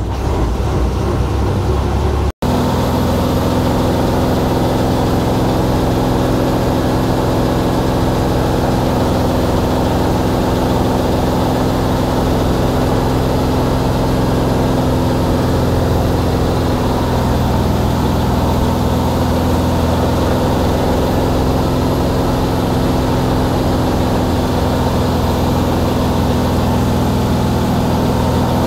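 Steady drone of a moving bus's engine and road noise, heard from inside the cabin, with a momentary dropout about two seconds in.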